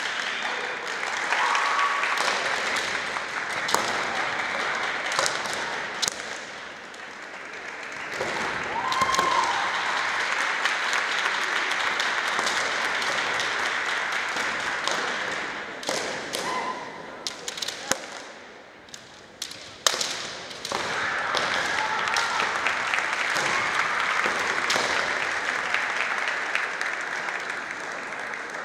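Kendo bout: sharp strikes of bamboo shinai and stamping feet, with a few short shouts (kiai) from the fencers, over a steady din from other bouts in the hall.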